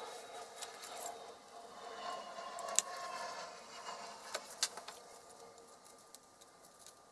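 Small metal parts of an old aircraft compass detector head being handled and worked with pliers: scraping and rubbing in the first half, and a few light, sharp metallic clicks, the loudest a little under three seconds in.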